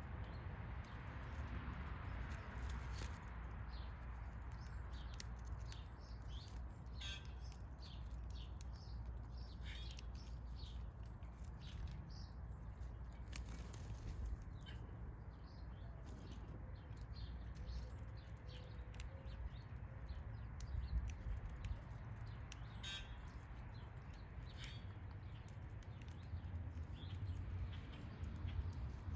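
Small backyard songbirds giving short, scattered chirps and calls, over a steady low rumble.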